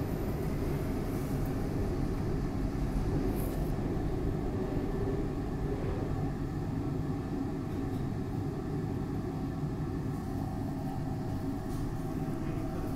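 Steady rumble and hum inside a Market-Frankford Line M-4 subway-elevated car standing at the platform with its doors shut. A train on the next track passes in the first few seconds, slightly louder then easing off.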